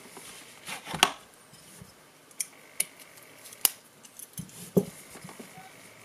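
Scattered sharp metallic clicks and light taps as pocket knives are handled and set down side by side: a small aluminium-scaled Victorinox Cadet and a Böker Plus F3 II titanium framelock folder.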